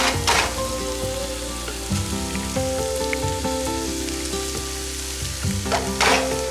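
Chorizo frying in a frying pan with a steady sizzle. Louder hissing bursts come just after the start and again near the end. Background music plays over it.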